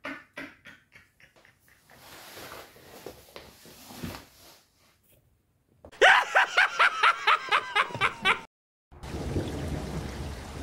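A man's evil laugh trailing off, then a loud, rapid cackling laugh about six seconds in, followed by steady rain.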